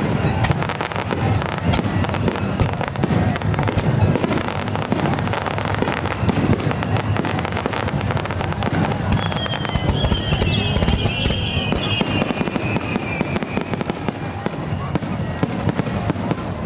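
Fireworks crackling in a dense, continuous stream of small pops over a low rumble, with a high wavering whistle for a few seconds past the middle.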